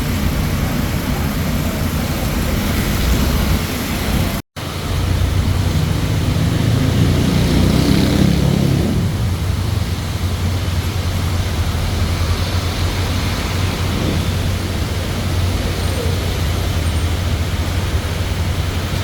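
Steady traffic and road noise with a constant low engine hum, swelling for a few seconds near the middle. It cuts out completely for a split second about four and a half seconds in.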